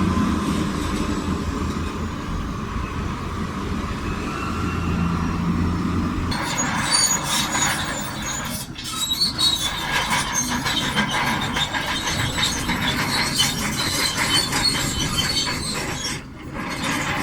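Shantui DH17C2 bulldozer's diesel engine running steadily, then from about six seconds in a loud metallic squealing and clattering, typical of crawler tracks and their rollers as the dozer moves.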